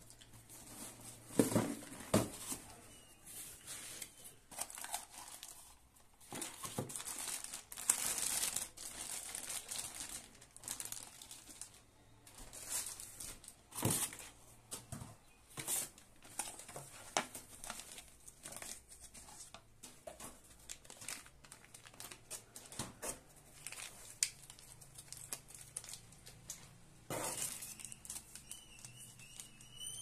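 Plastic packaging bags and a cardboard box being handled: irregular crinkling and rustling of plastic, with scattered taps and knocks of cardboard flaps and parts being lifted out.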